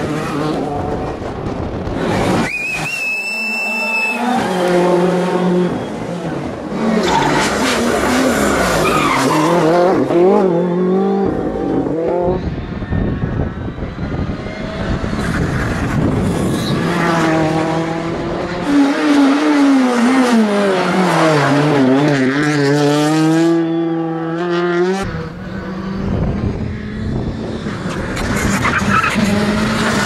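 Rally cars, among them a Renault Clio, a Ford Fiesta R5 and a Skoda Fabia R5, driven hard past one after another; engine notes climb and fall through gear changes and braking for corners. A brief high tyre squeal comes a few seconds in.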